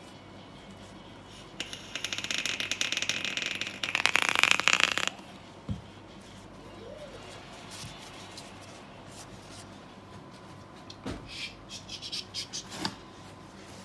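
Rebuildable tank atomizer coil sizzling and crackling while it is fired and drawn on, for about three seconds and louder towards the end, followed by a few sharp pops near the end. The vaper takes the popping for spit back from an over-saturated wick.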